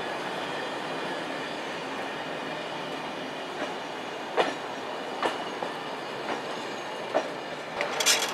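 SNCF Corail passenger coaches rolling slowly past on the track: a steady rumble of wheels on rail, with a few sharp, irregularly spaced clicks and a brief cluster of clicks near the end.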